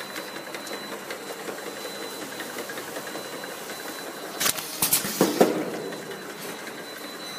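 Automatic sticker labeling machine running, its slat-chain conveyor and label-applying mechanism giving a steady mechanical clatter with a faint steady high tone. Several sharp clacks come about four and a half to five and a half seconds in, the loudest sound.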